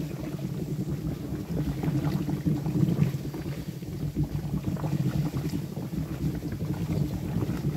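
Molten wax boiling and frothing around a submerged wooden bee box: a steady low bubbling rumble with many small pops and crackles. The moisture trapped in the wood is steaming out through the hot wax.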